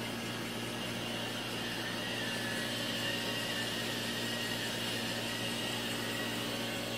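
Steady machine hum and hiss with a few constant low and high tones, unchanging throughout.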